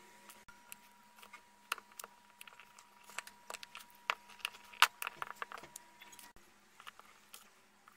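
Irregular light clicks and taps of small phone-repair tools and parts being handled, loudest about four to five seconds in.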